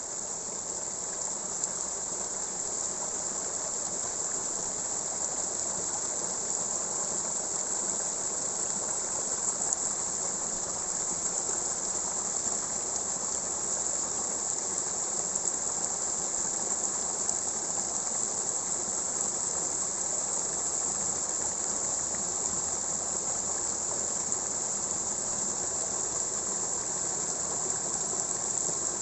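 Water running steadily through a rice paddy, a continuous flowing rush, under a constant high-pitched chirring of crickets that is the most prominent sound.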